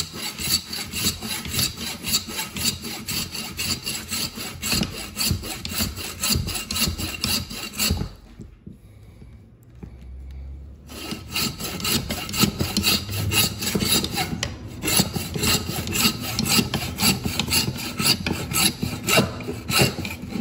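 Hand bow-frame meat saw cutting through a deer's skull bone between the eye and the antler burr with quick back-and-forth strokes, to take off the antlered skull plate. The sawing stops for about three seconds about eight seconds in, then goes on.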